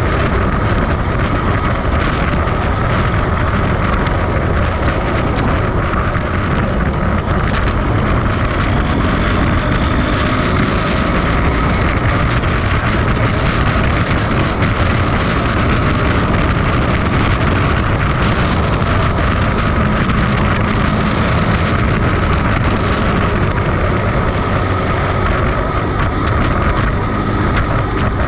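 Motorcycle riding at steady road speed, heard from a camera mounted on the bike: engine running with dense wind rush on the microphone, level and unbroken throughout.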